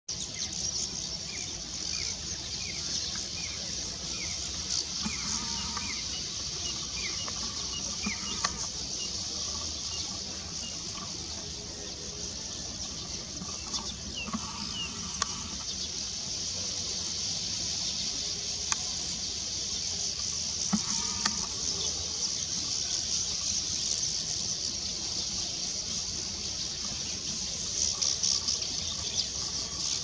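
Steady high-pitched insect chorus, with a bird repeating short chirps about twice a second for the first eight seconds and a few sharp clicks.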